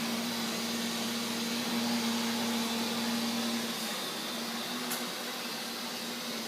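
A steady electric-appliance whir with a low hum that fades out a little over halfway through, leaving the whir going on.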